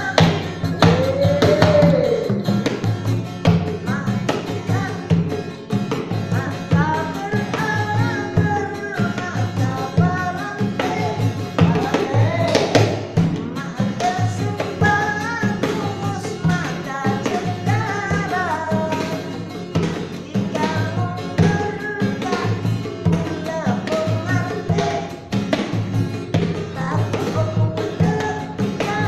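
A young street singer singing a melodic song over instrumental backing with a steady, repeating beat.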